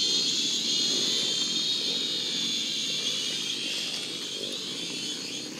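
Dirt bike engine running steadily: a rough low chug under a high, wavering engine whine, slowly growing quieter.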